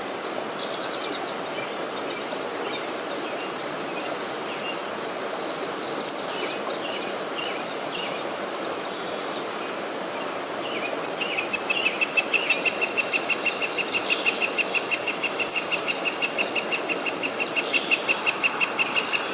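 Stream water running steadily, with scattered bird chirps. A little past halfway a loud high call begins, pulsing rapidly at about four a second, and keeps going.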